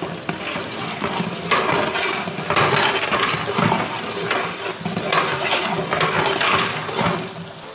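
A long metal ladle stirring and scraping onions, capsicum and whole spices frying in oil in a large metal pot. The ladle clinks against the pot in repeated strokes about once a second, over a steady sizzle.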